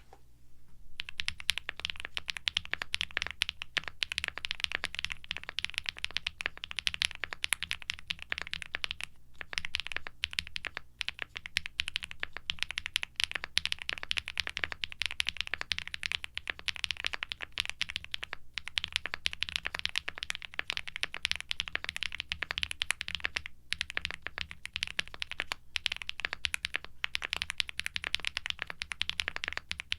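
Fast typing on a Gray Studio Space65 R3 mechanical keyboard (aluminum case, PC plate, full switch, plate and case foam) with lubed Gateron Baby Kangaroo tactile switches fitted with nylon top housings, and GMK keycaps. It is a dense, steady run of keystrokes with a marbly bottom-out sound, starting about a second in and broken by a few short pauses.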